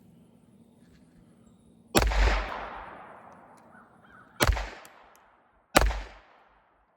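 Three shots from a Taurus TX22 .22 LR pistol firing Winchester white box ammunition, unevenly spaced (about 2 s, 4.5 s and 6 s in), each followed by a fading echo.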